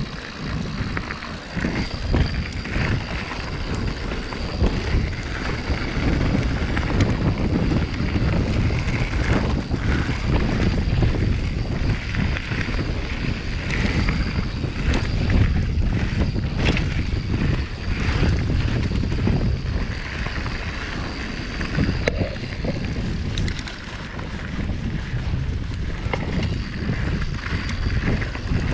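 Wind buffeting the microphone while a Yeti SB150 mountain bike is ridden, a rough, wavering rumble with tyre and trail noise and scattered knocks and rattles from the bike.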